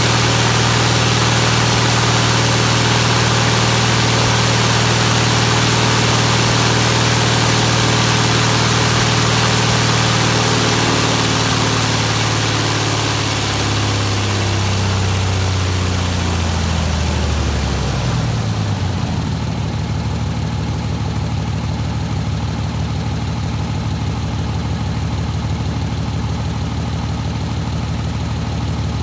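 UL Power UL520iS air-cooled flat-six aircraft engine, new and on a break-in ground run, turning a wooden pusher propeller. It runs steadily at first. About a third of the way in it is throttled back, and its pitch falls over several seconds before settling to a lower, evenly pulsing idle.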